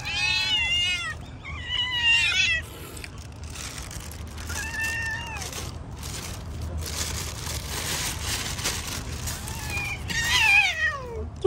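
Hungry stray cats meowing impatiently for food: four meows, the first with a quavering pitch and the last, near the end, a longer call that falls in pitch. Between the meows a plastic bag of food rustles.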